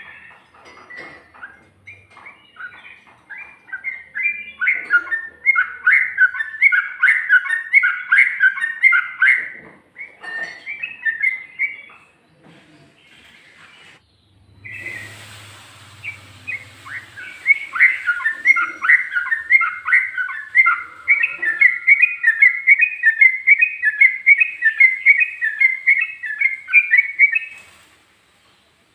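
Yellow-vented bulbul (trucuk) singing a rapid 'ropel' song: a fast, continuous run of chattering notes in two long bouts, with a short pause in the middle. A brief hiss and low hum come during the pause.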